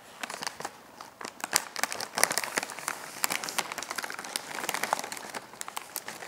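A foil snack bag of Kkobuk Chip crinkling and rustling as a hand reaches in among the chips, with many sharp irregular crackles.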